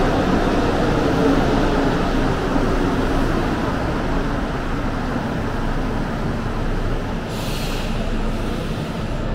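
Bombardier NC-82 rubber-tyred metro train pulling into the station and braking to a stop. A low running rumble carries a motor whine that falls in pitch as it slows, with a short hiss about seven seconds in as it comes to rest.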